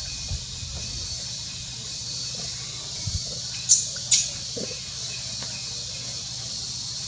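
Two short, high-pitched animal squeaks about half a second apart, a little past the middle, over a steady high hiss.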